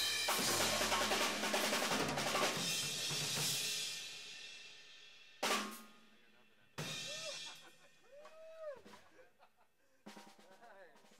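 Gretsch drum kit played hard: a fast run of drum hits with cymbals crashing, which dies away after about four seconds. Two more single hits follow, each with a ringing decay.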